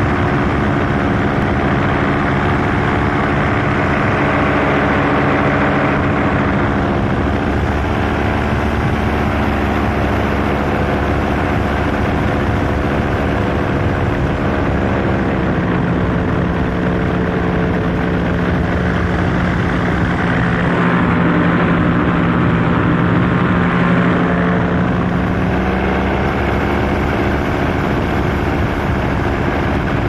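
Paramotor engine and propeller running steadily in flight, heard close up from the pilot's harness. The engine speed falls about halfway through and picks up again a few seconds before the end.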